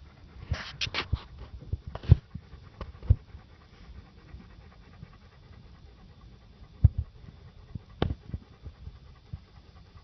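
Panting breaths close to the microphone, a quick run of them about half a second in, with a few dull thumps scattered through.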